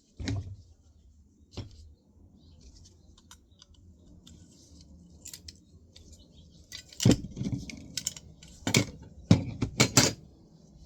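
Sharp clinks and knocks of small metal parts and hand tools being handled as a 3.5-inch floppy disk drive is taken apart, with quieter ticks and rattles between. The loudest strikes come in a cluster in the last few seconds.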